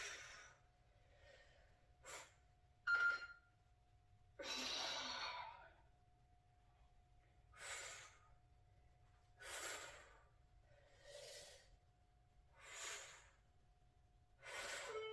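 A woman's heavy breaths under exertion during kettlebell reps: short hissing exhales about every one and a half to two seconds, with one longer breath about four and a half seconds in.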